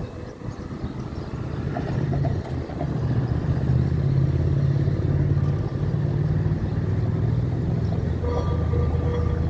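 Vintage Lisbon Remodelado tram, Carris no. 554, running past on its street rails: a low rumble that grows louder from about two seconds in and stays loud as the car goes by, with a faint whine near the end.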